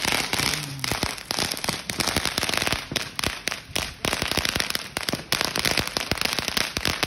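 Consumer fireworks going off close by: a dense, rapid run of sharp crackling pops that keeps on without a break.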